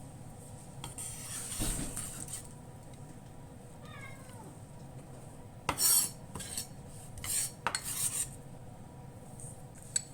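Kitchen utensils and cookware clattering and scraping, with a few sharp clinks in the second half. A brief, faint falling squeal comes about four seconds in.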